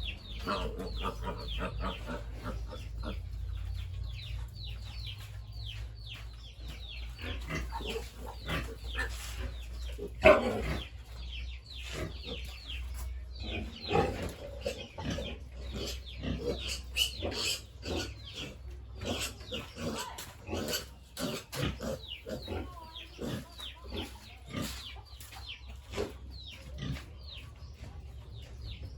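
Pigs calling in a quick run of short, falling squeals and grunts over a steady low hum, with one louder squeal about ten seconds in.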